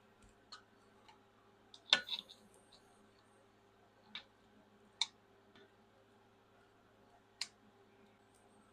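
Scattered light clicks and clinks of small metal parts being handled while a hydraulic control valve is taken apart, the sharpest a quick double click about two seconds in, over a faint steady hum.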